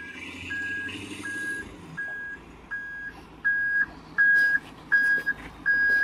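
Heavy equipment's reversing alarm beeping steadily, a single-tone beep a little more than once a second, growing clearly louder about halfway through, over the low running of a diesel engine.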